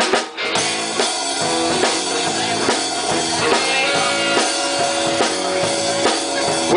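A live band plays an instrumental intro, with a drum kit keeping a steady beat under electric guitar.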